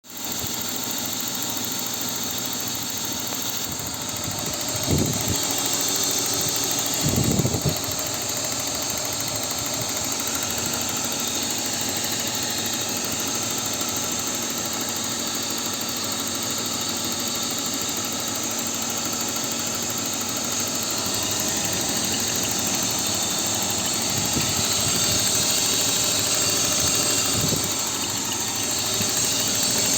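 BMW M52B28 2.8-litre straight-six engine idling with a ticking noise. A couple of brief louder bursts come about five and seven seconds in.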